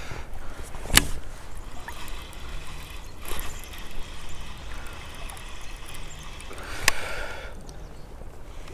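River water running, a steady rushing wash, with two sharp clicks, one about a second in and one near seven seconds.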